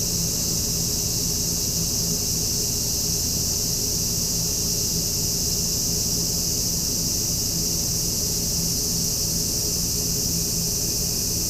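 Steady high-pitched hiss, unchanging throughout, with a faint low hum beneath it.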